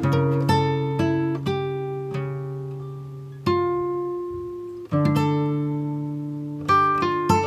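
Instrumental music of plucked notes and chords that ring and fade. A chord is struck about three and a half seconds in, another about five seconds in, and a quicker run of notes comes near the end.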